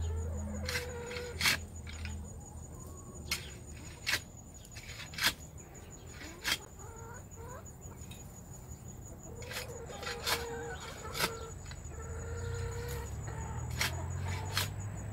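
Chickens clucking and murmuring in short low notes as they scratch and peck in loose compost, with about ten sharp clicks scattered through.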